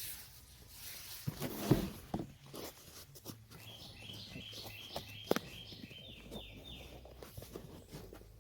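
Knocks and rustling from handling a cardboard product box as it is opened and unpacked, the sharpest knocks about a second and a half and five seconds in. Small birds chirp repeatedly in the background through the middle.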